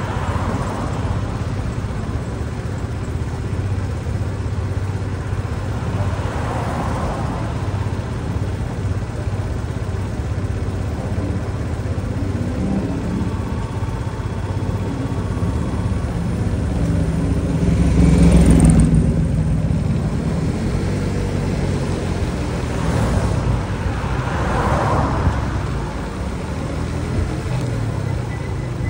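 A motor vehicle engine idling steadily at a stop in road traffic, a low even hum, with other vehicles passing now and then; the loudest pass comes about eighteen seconds in.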